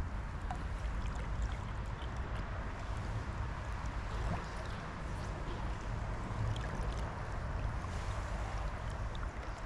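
Steady rush of river water, with a low rumble underneath and a few faint ticks.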